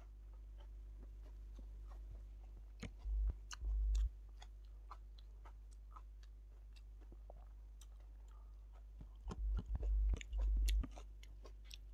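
A person chewing mouthfuls of food, with many small clicks throughout. Twice, about 3 seconds in and again around 10 seconds in, come clusters of dull, deep thuds that are the loudest sounds.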